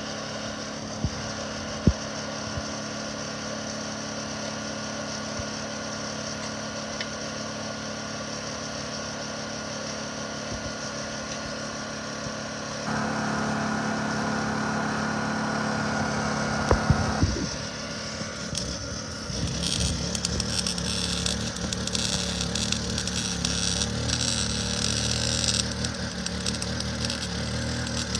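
Honda EU2000i inverter generator running steadily, stepping up louder for a few seconds midway. For the last eight seconds or so the irregular crackle of a Lincoln 110-volt welder's arc joins it, as a nut is welded to a steel frame, and the generator runs harder under the welding load.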